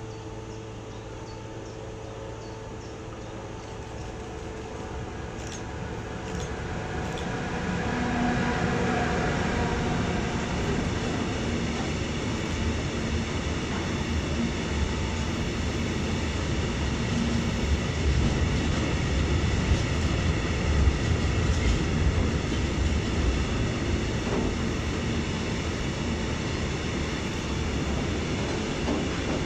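Freight train of covered grain hopper wagons rolling past, its rumble growing louder over the first several seconds as it draws near, then holding steady as the wagons' wheels run over the rails.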